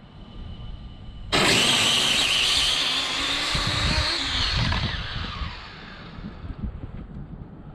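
Electric RC drag car on a 4S LiPo pack launching about a second in: a sudden loud motor whine and tyre noise that falls in pitch and fades over about four seconds as the car runs off down the lot. Wind rumbles on the microphone.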